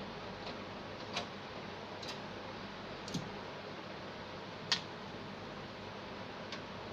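Light, irregular clicks, five in all, over a steady hiss; the loudest comes about two-thirds of the way through.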